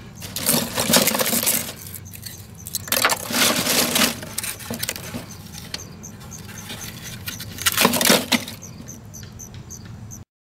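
Lumps of hardwood charcoal clinking and scraping against each other in a metal bucket as a hand rummages through them, in three bursts over a low steady hum. The sound cuts off just before the end.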